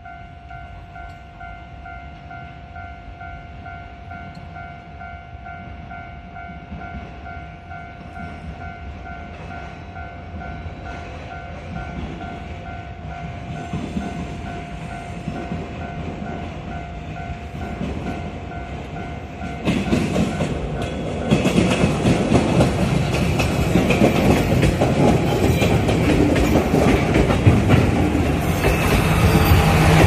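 Japanese level crossing warning bell ringing in a steady, even repeat, while two trains approach side by side: a KiHa 200 diesel railcar and an 817 series electric train. The train noise grows louder and jumps about two-thirds of the way in. By the end the trains are passing over the crossing, and the heavy running and wheel noise drowns out the bell.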